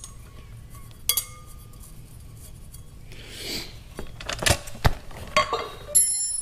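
Metal clinks and knocks as the removable silencer insert of a Blitz Nur Spec exhaust is fitted back into the tailpipe tip: one ringing clink about a second in, a short scrape, then several sharp clinks close together in the second half.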